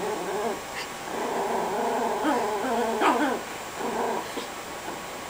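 A chihuahua growling in long, steady rumbles with short breaks, a sound likened to a motorcycle. It is guarding the bone it is chewing as a hand reaches in to pet it.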